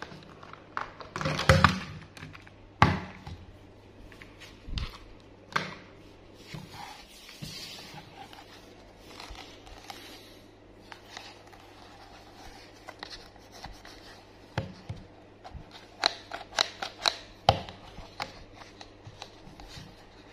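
Hard plastic toy vehicles clicking and knocking as they are handled and turned over: a loud clatter about a second and a half in, a few separate knocks, then a quick run of clicks near the end.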